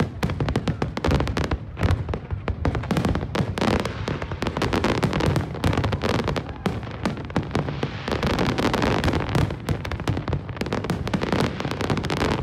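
Fireworks display in full barrage: a continuous stream of bangs and crackling, many shells bursting in quick succession with no pause.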